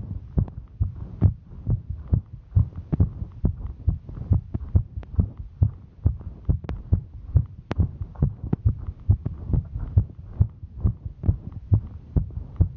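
A woman's heartbeat, a rapid, steady run of low thumps, raised by the exertion of hiking.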